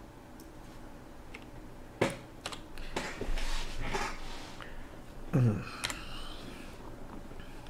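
Scattered clicks of a computer keyboard and mouse. About five and a half seconds in comes a short, low, falling murmur of a man's voice.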